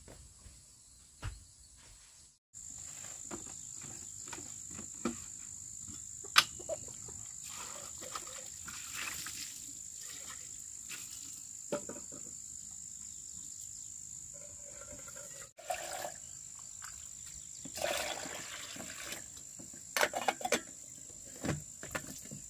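A steady high-pitched insect drone, which comes in about two seconds in. Over it come scattered knocks of plastic basins and stretches of water being poured and splashed.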